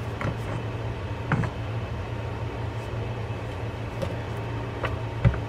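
Light clicks and taps of small metal reel parts and screws being handled on a wooden workbench, over a steady low hum. A louder dull knock comes near the end.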